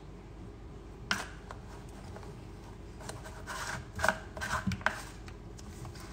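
Plastic clicks and knocks from handling a portable blender's plastic bottle and lid: one sharp tap about a second in, then a cluster of clicks and rustling a little past halfway.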